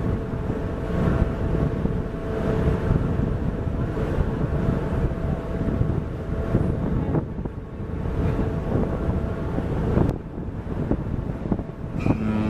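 Wind buffeting the microphone over the low rumble of the cruise ship MS Artania's machinery and churning water at its bow. Near the end the ship's horn starts with a deep, steady tone.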